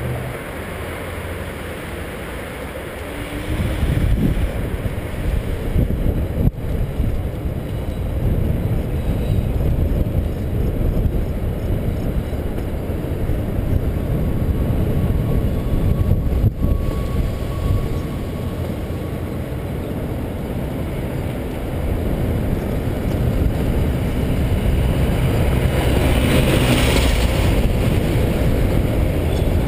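Wind buffeting the microphone of a camera on a moving bicycle: a loud, uneven low rumble that grows louder toward the end.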